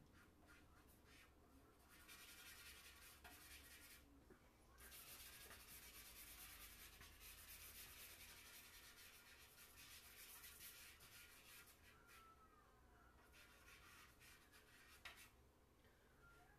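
Faint scratching of charcoal rubbed back and forth across drawing paper in shading strokes, in spells with a short pause a few seconds in, growing quieter near the end.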